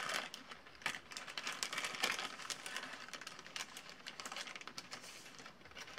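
Paper rustling and crinkling as it is handled, with scattered light clicks and taps, the strongest about one and two seconds in.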